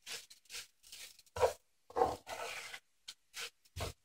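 Black plastic spatula stirring and scraping rice, onion and tomato paste in a frying pan while the rice is lightly toasted, in short irregular scrapes about two or three a second, with one longer drawn-out scrape about two seconds in.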